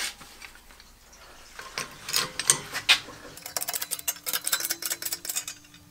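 Light metal clinks and rattles of a steel stump jumper plate being handled on a hydraulic shop press: a few separate clicks, then a quick run of ticks over the last two seconds with a faint steady hum under them.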